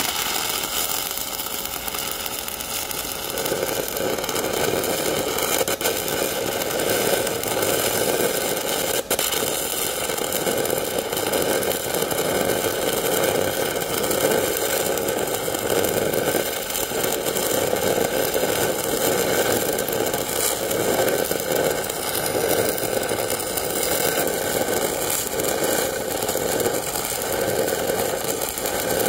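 Shielded metal arc (stick) welding with a 6010 electrode, running an open root pass in a steel pipe joint: the arc crackles and hisses steadily, thickening a few seconds in.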